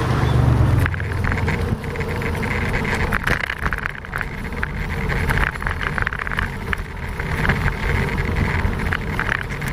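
Bicycle tyres rolling over a brick-paved street, with the bike-mounted camera rattling and jolting in a continuous chatter of small knocks over a rough rumble. A passing motor vehicle hums low in about the first second.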